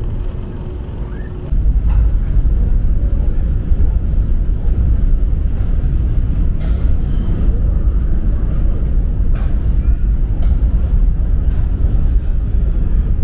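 Steady low rumble of the ferry's machinery while berthing, jumping louder about a second and a half in and then holding level.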